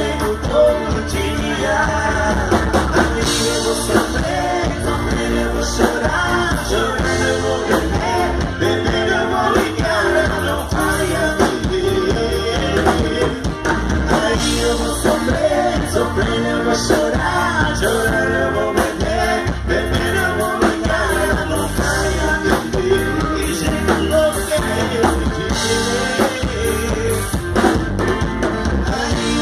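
Live sertanejo band playing through a PA, a male voice singing over drums and a heavy bass line.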